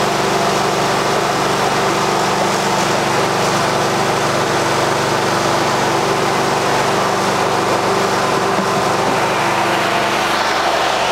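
Portable generator engine running steadily, a loud constant drone with a fixed hum.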